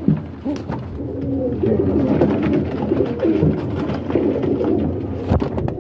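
Many domestic pigeons cooing at once, a dense overlapping chorus of low warbling coos in a small loft.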